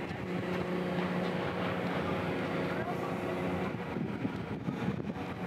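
Steady low hum of rail-yard machinery running, a constant pitch that fades out about four seconds in.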